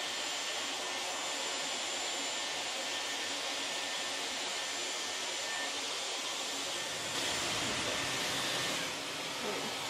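Dyson hair dryer blowing steadily, a rush of air with a thin high whine on top.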